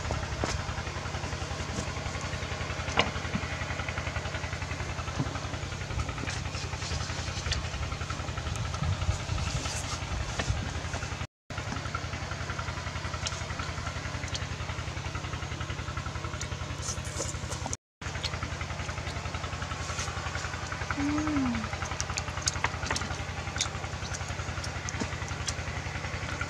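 A small engine idling steadily out of sight, a low even chug, with scattered light clicks and taps of chopsticks stirring food in a metal tray. The sound drops out for a moment twice.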